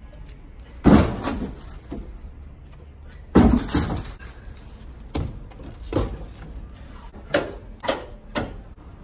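Firewood logs being dropped into the bed of a mini truck: two heavy thuds with a short ringing decay, about a second and three and a half seconds in, then five lighter knocks of wood on wood and metal.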